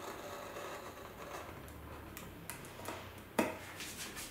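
Scalpel blade drawing along the edge of heat-shrink covering film on a balsa fin, trimming it: faint scratching with a few light ticks, and a sharper click about three and a half seconds in.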